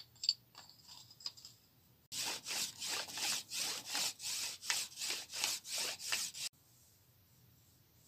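Wooden arrow shaft being scraped back and forth through a pair of grooved, soft sandy shale stones, a dry rasping rub at about three strokes a second. The stones are smoothing and polishing the shaft. A few light clicks come first, and the rubbing starts and stops abruptly.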